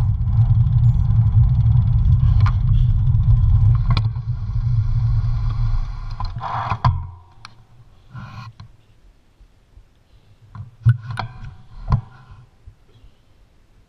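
Wind rushing over the camera microphone and road noise from the bicycle while it rides along. The noise drops away about seven seconds in as the bike slows behind the rider ahead, leaving a few short clicks and knocks.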